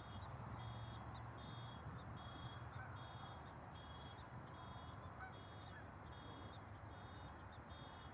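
Faint, high electronic beep repeating evenly, a little more than once a second, over a steady low hum and hiss.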